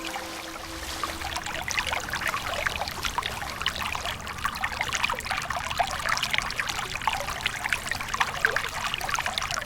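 A small waterfall splashing and trickling, a steady spattering of falling water that cuts off suddenly near the end.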